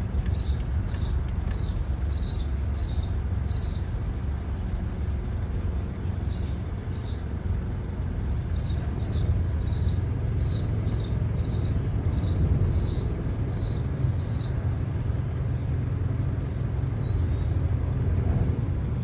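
Northern cardinal giving short, high chip notes, about three a second in runs with pauses between, over a steady low rumble.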